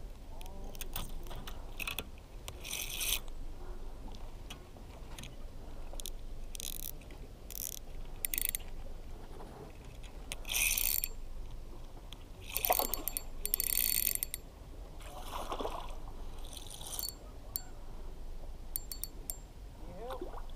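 Short, scattered spells of scraping and whirring as a spinning reel is wound and fishing gear is handled, over a steady low rumble.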